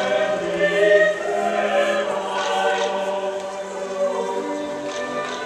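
Choral music: several voices singing held notes together, layered over one another.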